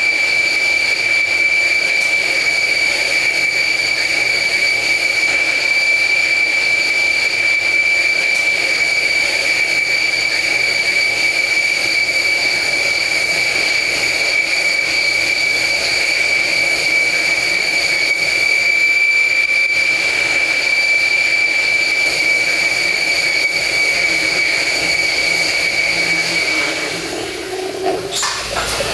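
Kennametal DFSP 2-inch indexable drill boring into a spinning 316 stainless steel bar on a Doosan Puma SMX 3100ST mill-turn lathe, under flood coolant. A steady high-pitched whine runs over the hiss of coolant spray, and the whine stops near the end as the cut finishes.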